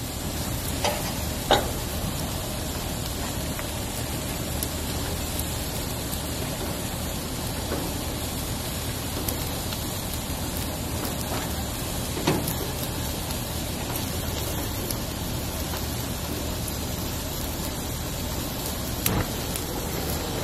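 Gas grill running with seafood sizzling on the grate: a steady crackling hiss, broken by a few light knocks.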